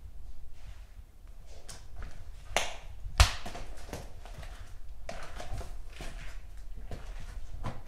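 Footsteps with scattered light taps and scuffs, and one sharp knock a little after three seconds in.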